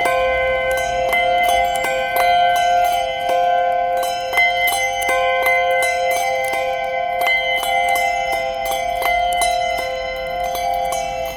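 Handbells being rung, a quick, even succession of strikes whose ringing tones overlap and sustain.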